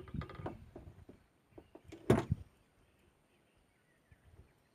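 Handling knocks and clatter against a wooden hut frame: a quick run of small clicks and taps, then a few knocks with one loud thump about two seconds in, after which it goes quiet.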